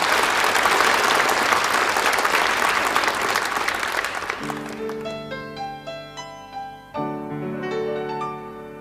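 Audience applause that fades out about halfway through, giving way to the soft instrumental introduction of a song: sustained chords with a melody line of single notes above them, a new chord coming in about two and a half seconds later.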